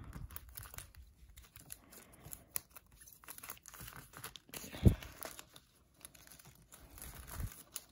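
A stack of trading cards in plastic sleeves being handled and squared up: soft plastic rustling and crinkling as the cards slide against each other, with one dull knock about five seconds in.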